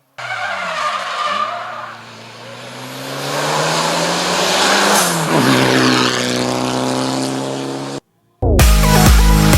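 Hillclimb race car engine at high revs, its pitch rising and falling with throttle and gear changes, then falling sharply about five seconds in. The sound cuts off suddenly just after eight seconds and electronic dance music with a heavy beat starts.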